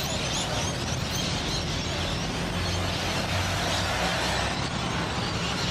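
Street traffic: a car passes close while a low-floor Melbourne D-class (Siemens Combino) tram moves slowly through a curve. Steady road noise throughout, with no single loud event.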